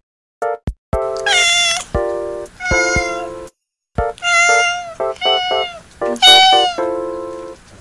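Cats meowing repeatedly while begging for treats: about five drawn-out meows, each falling in pitch, the loudest near the end. Short bits of music play between and under the meows.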